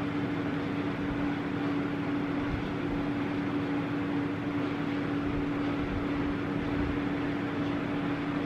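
Steady hum: one constant low tone over an even hiss, with no change in level.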